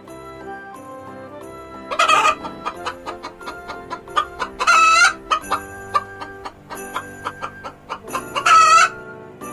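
Chickens clucking rapidly, broken by three loud, short squawking calls, over light background music.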